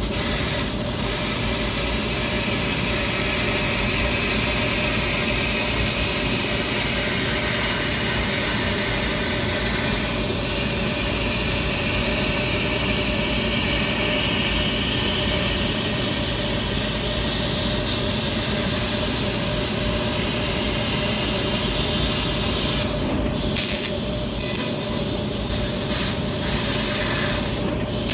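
6 kW CNC laser cutter cutting 15 mm S235JR structural steel plate: a steady, loud rushing hiss of the cut and its gas jet. The hiss breaks off briefly a few times near the end.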